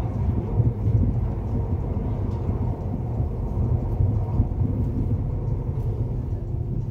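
Passenger train running at speed, a steady low rumble heard from inside the carriage.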